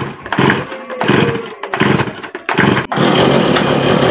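Stihl MS 170 two-stroke chainsaw being pull-started: about five short bursts from quick pulls on the starter cord, then the engine catches about three seconds in and runs steadily.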